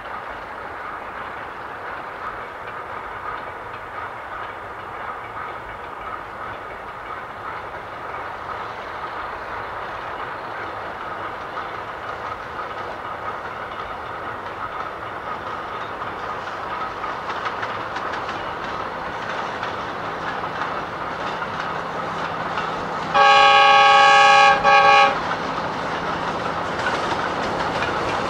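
Diesel locomotive hauling a freight train approaches, its engine and rolling noise growing steadily louder. Near the end its horn sounds loudly: one blast of about a second and a half, then a short second blast right after.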